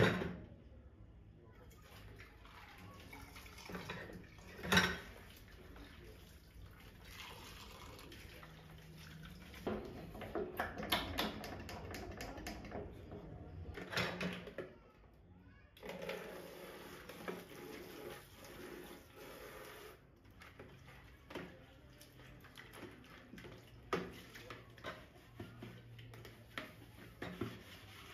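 Running water on and off, with scattered clinks and knocks of household items.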